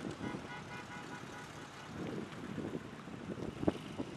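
A car driving past on the road, with a sharp click about three and a half seconds in.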